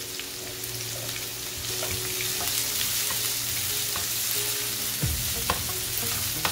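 Chopped onion and crushed garlic sizzling in hot olive oil in a nonstick frying pan, stirred with a wooden spatula that scrapes across the pan; the sizzle grows louder about two seconds in, and the spatula knocks against the pan a couple of times near the end.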